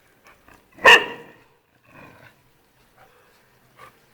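A dog barks once, a single short loud bark about a second in.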